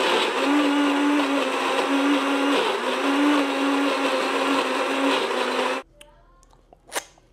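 Countertop blender running at speed, pureeing a thick avocado salsa, with a steady motor tone under the churning noise. It cuts off suddenly about six seconds in, and a single sharp click follows near the end.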